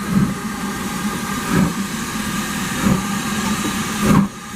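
Steam locomotive pulling away, its exhaust chuffing about once every second and a quarter and gradually quickening, over a steady engine drone.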